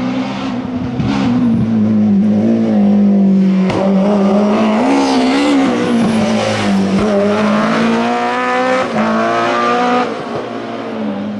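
Classic rally car's engine at high revs, its pitch climbing, dipping and climbing again through gear changes and throttle lifts. It grows loud about two seconds in and falls away near the end as the car goes past.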